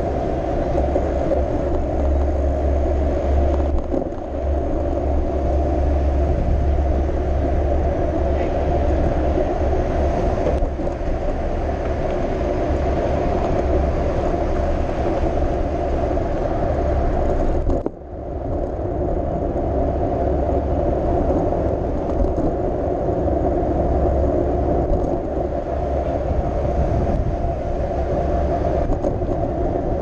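Wind rumbling on an action camera's microphone during a bicycle ride along a city street, with steady tyre and road noise and traffic passing. The sound drops out briefly about eighteen seconds in.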